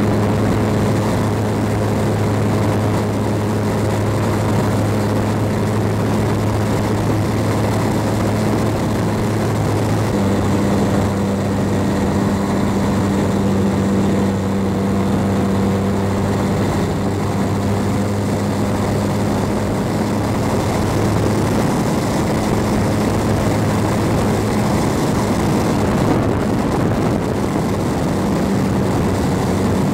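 Radio-controlled model airplane in flight, heard from a camera on board: its motor and propeller drone steadily over a constant rushing noise. The drone shifts pitch slightly about ten seconds in.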